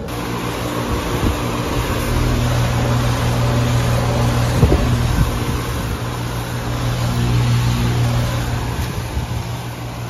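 Outdoor air-conditioner/heat pump condensing unit running, giving a steady low hum from its compressor over the rush of its condenser fan.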